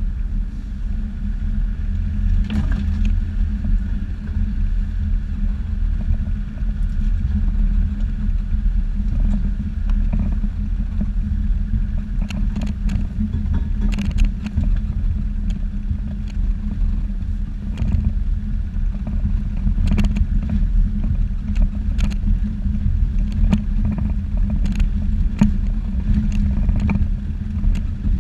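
A Jeep's engine running steadily at low trail speed, a low drone, with scattered knocks and rattles as the vehicle jolts over a rough dirt track.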